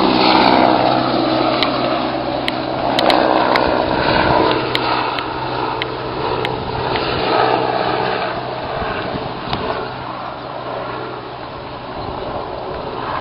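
Gendarmerie helicopter flying overhead, its rotor and turbine sound steady, slowly fading as it moves away.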